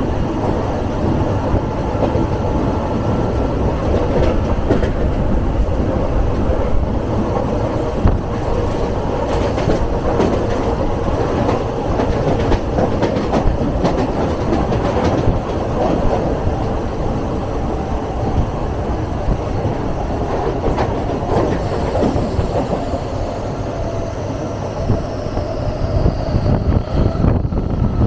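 Train running on the rails, with a steady rumble and the wheels clicking rhythmically over rail joints. A high whine falls in pitch near the end.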